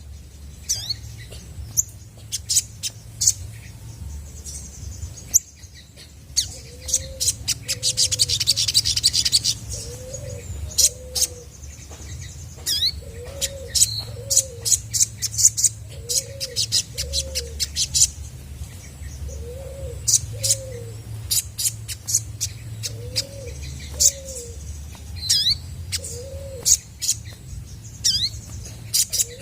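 Olive-backed sunbird singing hard: sharp, high chirps and quick sweeping notes, with a fast rattling trill about seven seconds in. Low two-note coos repeat every few seconds beneath it, over a steady low hum.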